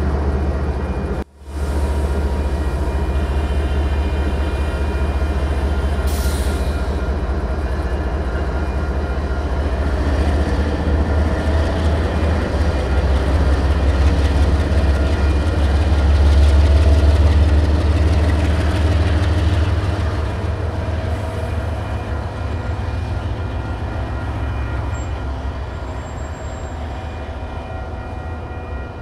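Canadian Pacific GE ES44AC and AC4400CW diesel-electric locomotives moving past together, their engines giving a deep, steady rumble. The rumble swells toward the middle and fades as the units pull away. A short hiss comes about six seconds in.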